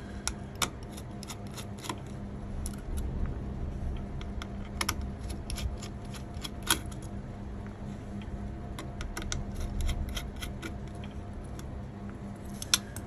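Computer keyboard keys clicking irregularly, a few presses a second with some quick runs, over a steady low hum.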